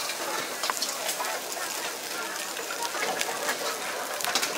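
Egg fried rice sizzling in a hot wok over a gas burner: a steady hiss, with a few light taps and scrapes of the ladle and spatula on the wok.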